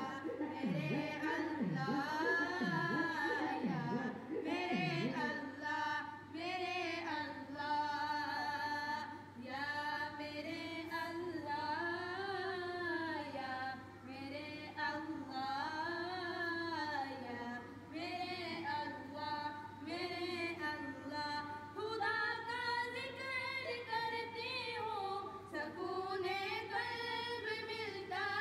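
Unaccompanied Islamic devotional song sung by a woman's voice in long, wavering melodic lines, with a few quick falling vocal slides in the first five seconds over a faint steady hum.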